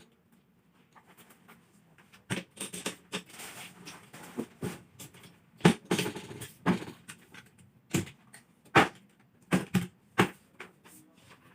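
Irregular clicks, knocks and short scraping sounds of objects being handled, starting about two seconds in.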